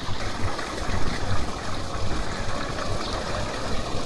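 Spring water running steadily, a continuous flowing and splashing with an uneven low rumble underneath.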